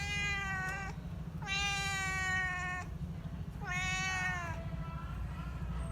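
Domestic cat meowing three times, long drawn-out calls of about one to one and a half seconds each, over a steady low rumble.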